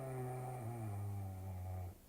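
Snoring: one long, low, pitched snore that drops slightly in pitch partway through and ends near the end, part of a steady pattern of snores a few seconds apart.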